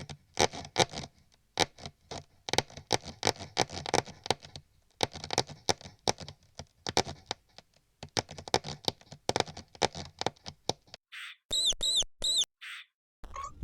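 Mouse sound effects: rapid scratching and pattering clicks of scurrying, then two short high squeaks near the end.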